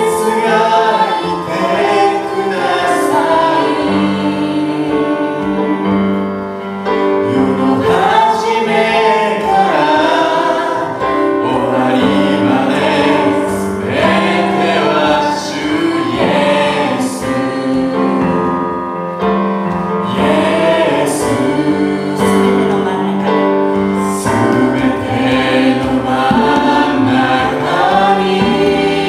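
Gospel worship song sung in Japanese by a group of singers, choir-style, over a live band.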